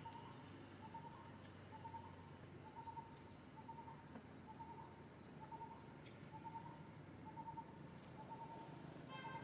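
A bird calling faintly, repeating a short pulsed note at the same pitch about once a second. Near the end there is a brief, higher call.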